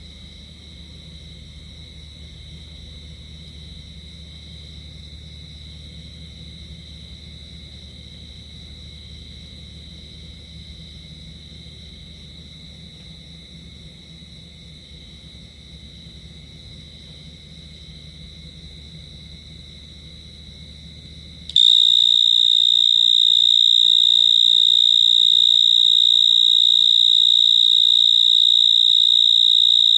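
A night-singing insect holding one continuous high-pitched trill. It is faint over a low hum at first, then jumps suddenly to much louder about two-thirds of the way through.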